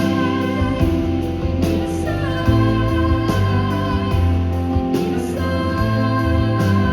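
Live concert music: a band playing a song with held notes and a steady beat, with singing over it.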